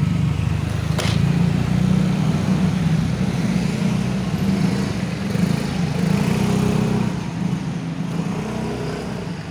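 Motor scooter engine running close by, steady and then fading away over the last couple of seconds, with a single sharp click about a second in.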